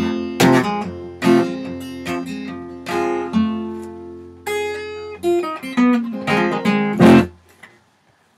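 Acoustic guitar with a capo, picked in a country blues with bass notes under treble runs: the closing instrumental bars of the song. A final loud strummed chord about seven seconds in rings briefly and dies away.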